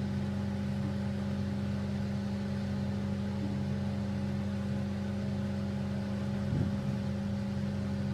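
Steady low machine hum, like a motor running at constant speed, with a brief soft bump about six and a half seconds in.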